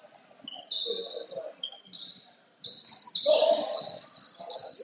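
Rubber-soled sneakers squeaking on a gym floor: a quick run of short, high, flat-pitched squeals, with voices underneath.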